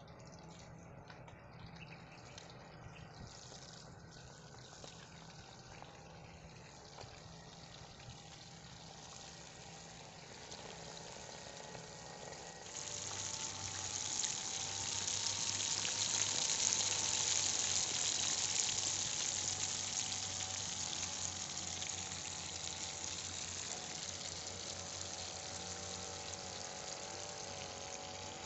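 Fish frying in hot oil in a small wok, a steady sizzle. It is fainter at first, then about halfway through it suddenly becomes much louder and closer, staying that way.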